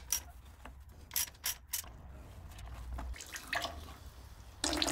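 A few sharp tool clicks at the oil drain plug of a 1.9 litre turbo diesel's sump as it is loosened, with a faint trickle building. Near the end, warm engine oil suddenly starts pouring from the drain hole into a bucket with a steady splashing.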